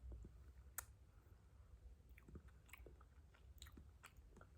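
Faint sounds of eating a strawberry ice cream: scattered small mouth clicks of biting and chewing over a low steady hum.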